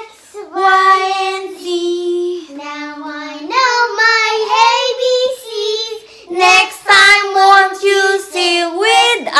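Children singing, in phrases of long held notes that step up and down in pitch, with short breaks between phrases.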